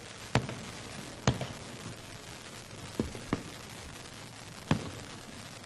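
Fireworks going off: five sharp bangs at uneven spacing, two of them close together about three seconds in, over a steady background hiss.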